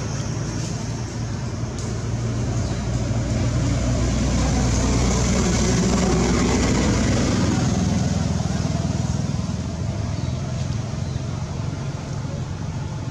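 A motor vehicle passing by over a steady low hum: its noise swells about four seconds in and fades away after about eight seconds.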